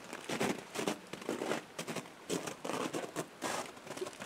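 Footsteps crunching through deep, frozen snow, about two steps a second.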